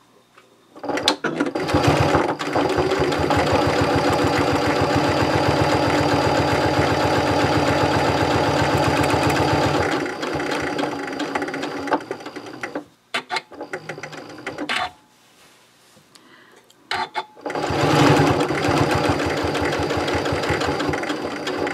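Janome Continental M7 Professional sewing machine topstitching at a steady, rapid stitch rhythm. It slows and stops about twelve seconds in, a few clicks follow while the fabric is turned, and it runs again near the end.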